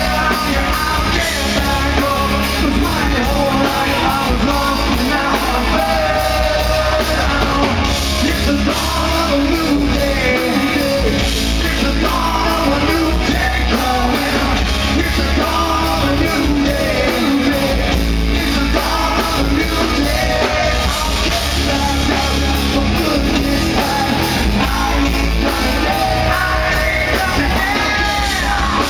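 Live rock band playing loud: a male lead singer belting and yelling into a handheld microphone over electric guitar, bass and drums, amplified through the club's PA.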